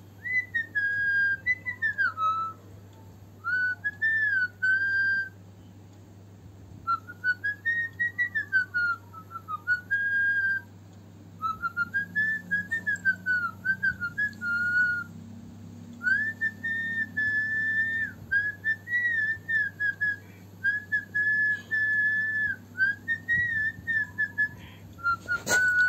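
A person whistling a tune from a phone's speaker: one clear, high melody with sliding notes, in phrases broken by short pauses.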